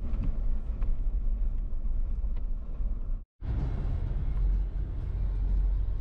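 Jeep driving slowly over a snow-covered track, a steady low rumble of engine and tyres heard from inside the cab. The sound breaks off for a moment about three seconds in, then carries on.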